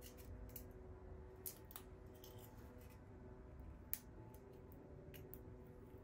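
Faint crackling of dry, papery winged tree seeds handled between the fingers as their wings are worked off, a few scattered crisp clicks, the sharpest about four seconds in, over a low steady hum.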